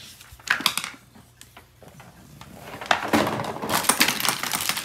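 Cardboard box and plastic packaging of a Play-Doh playset being handled: a few sharp clicks about half a second in, then from about three seconds in a louder stretch of rustling, crinkling and clattering as the box is lifted and tipped.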